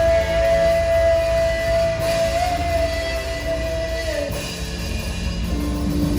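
Live worship band music: a long held note over a steady low bass, the held note sliding off about four seconds in, with new lower notes coming in near the end.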